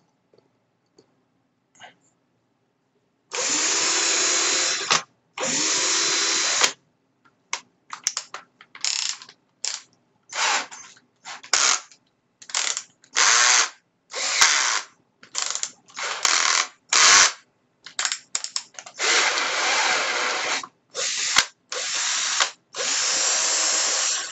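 Bosch GSR 12-2 cordless drill/driver motor run in repeated trigger pulls: two runs of about a second and a half, then a quick string of short bursts, then longer runs near the end.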